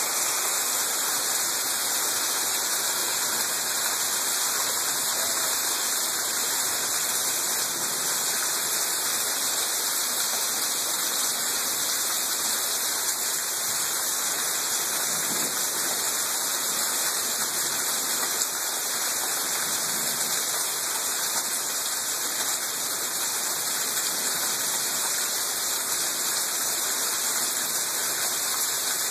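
Hailstorm: a steady, dense hiss of hail falling without let-up.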